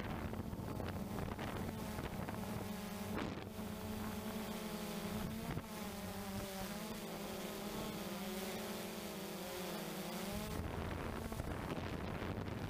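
Blade 350 QX3 quadcopter's brushless motors and propellers whirring, heard from the onboard camera: a steady low hum, with several higher motor tones wavering up and down from about two seconds in until shortly before the end as the motors change speed. Wind rushes over the microphone.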